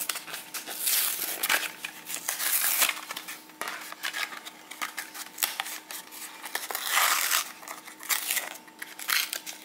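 Clear plastic blister pack crinkling and crackling with irregular sharp snaps as it is worked open by hand and pulled away from its cardboard backing card.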